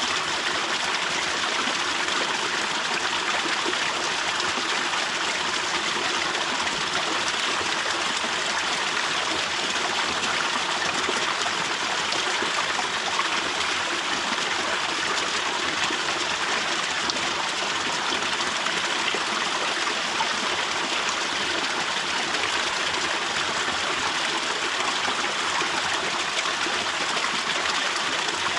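Waterfall drip: water falling and splashing down continuously in a steady, dense patter of droplets, with no let-up.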